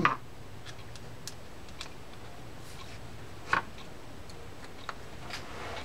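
A few faint, scattered small clicks and ticks as a screwdriver and a small case screw with its washer are handled against a spinning reel's case, with one sharper click a little past halfway.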